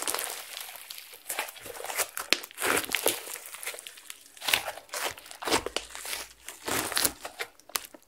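Thick yellow slime with small beads mixed in being squeezed, folded and stretched by hand, giving a dense run of irregular sticky pops and crackles.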